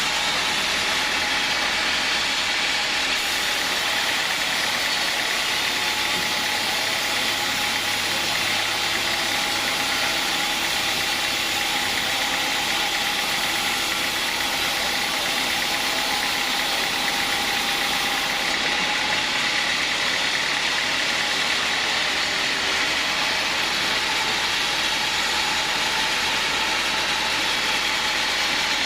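Homemade sawmill rig running steadily: a constant mechanical engine-and-saw noise with a few steady pitched tones in it and no pauses.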